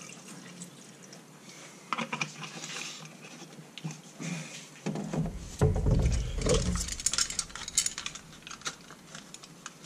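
Measuring spoons clinking and rattling against a cup as they are washed in denatured alcohol, in scattered clicks and taps. A dull low bump about five seconds in is the loudest sound, followed by a quicker run of rattling clicks.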